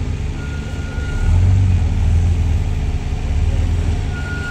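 Engine of an off-road Jeep crawling up a steep rocky climb, running steadily under load and getting louder about a second in as it is given more throttle.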